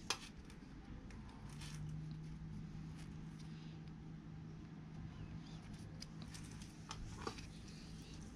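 Faint small clicks and rubbing as tiny brake-switch parts are wiped with a cloth rag, with one sharp click right at the start and another near the end. A faint steady low hum sets in about a second and a half in.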